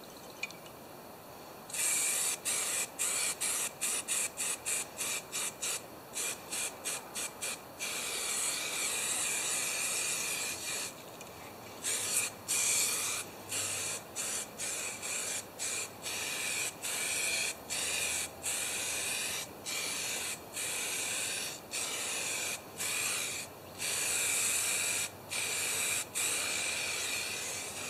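Aerosol spray paint can spraying: first a run of short, rapid puffs, then longer sprays of a second or more each, separated by short pauses.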